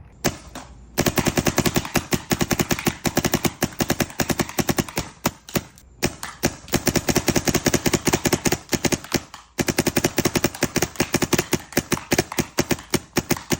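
Adrenaline Impulse paintball marker firing long strings of rapid shots, three runs with brief pauses about six and nine and a half seconds in. The rate of fire is held back by the Revy gravity-fed loader.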